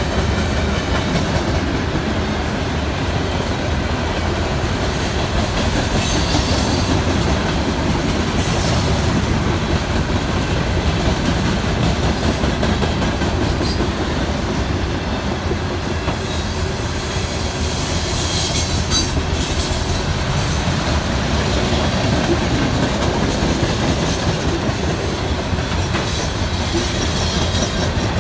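Loaded coal hopper cars of a long freight train rolling past: a steady rumble of steel wheels with clickety-clack over the rail joints, and brief high-pitched wheel squeals a few times.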